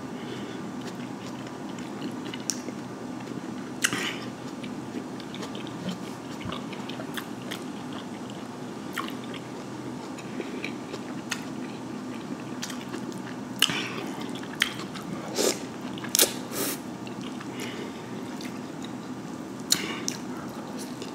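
Close-miked chewing and lip smacking while eating a seafood boil, with sharp wet mouth clicks every few seconds, bunched together about two-thirds of the way in and again near the end.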